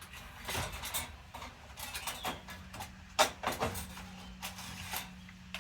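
A string of light clicks and knocks from small parts and tools being handled on a workbench, the sharpest about three seconds in, with a faint steady hum coming in partway through.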